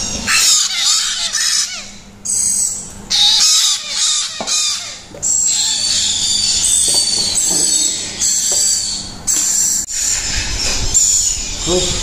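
Baby parrot chicks giving repeated high-pitched begging calls in short runs.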